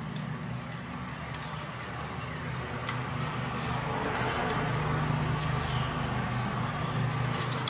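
Faint clicks of the VW mechatronic unit being handled and worked into place on the transmission, over a steady low hum with a hiss that swells slightly. A few short high falling chirps sound over it.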